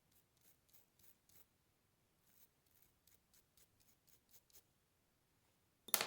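Faint, irregular scrubbing strokes on a circuit board, cleaning off flux residue, then a sharp knock near the end.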